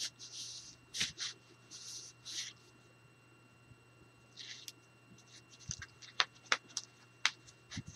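Hands rubbing and pressing a sheet of heavy black cardstock while folding it along its scored lines: a few brief papery rubs, then several sharp clicks in the last couple of seconds.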